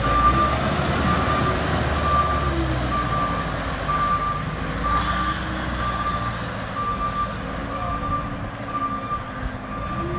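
Heavy vehicle's reversing alarm beeping steadily, a short high beep a little more than once a second, over its engine running and revving up and down, with a wash of noise.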